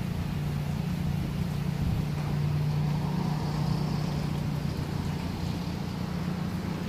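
Vehicle engine running with a low, steady hum, heard from inside the cab while the vehicle moves slowly.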